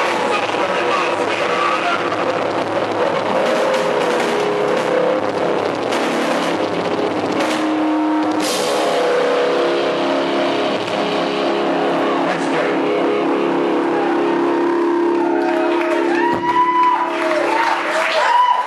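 Live rock band playing, with electric guitars, bass and drums. Through the second half a held chord rings out steadily.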